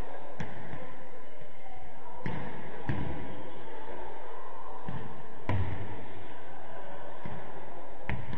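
Futsal ball being kicked and bouncing on a hard sports-hall floor: about five separate thuds with a short echo, the loudest about five and a half seconds in.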